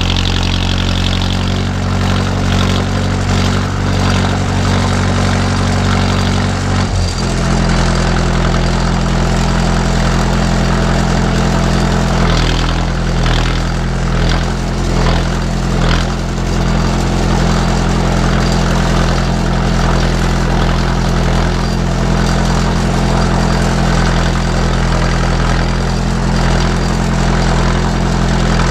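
A 45 hp utility tractor's engine runs steadily under the seat while the tractor drives along carrying a round hay bale on its front loader. The engine speed steps up about seven seconds in, and short clattering rattles come through the middle stretch.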